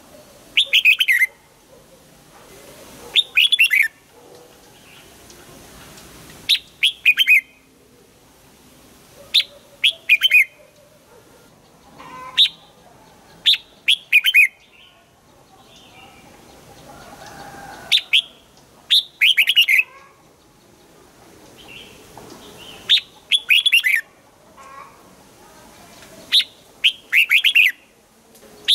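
Red-whiskered bulbul singing short, loud phrases of several quick notes, repeated every few seconds.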